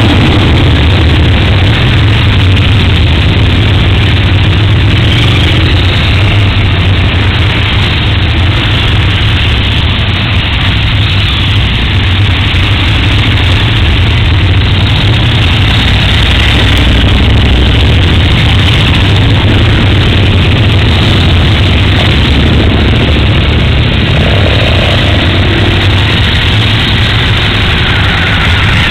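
Several large motorcycles, mostly KTM LC8 V-twins, running at low revs as they roll off one after another, a steady deep engine drone.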